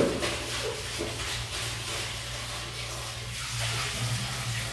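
Water running from a tap in a steady rush, opening with a sharp knock, over a low steady hum.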